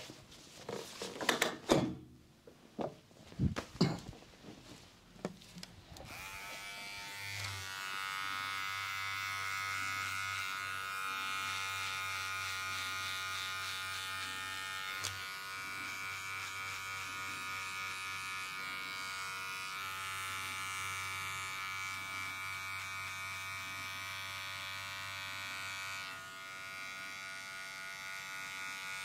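A few sharp knocks and scrapes of handling, then an electric hair clipper switched on about six seconds in and running with a steady buzzing hum.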